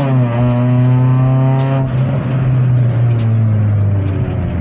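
Chevrolet Celta's 1.0 VHC-E four-cylinder engine, with a 4-into-1 header and a straight-through exhaust, heard from inside the cabin. Its pitch drops at a gear change right at the start and pulls again for about two seconds, then the note thins and sinks slowly as the throttle is eased.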